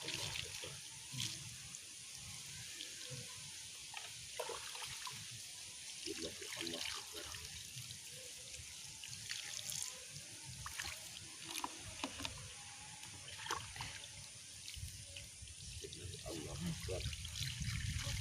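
Water trickling and dribbling over a person being bathed, with scattered small splashes and drips throughout.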